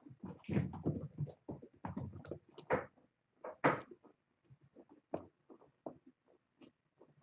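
Kittens scampering and pouncing on a wooden floor: an irregular run of soft thumps, patter and a few sharp knocks, busiest in the first four seconds and sparser after.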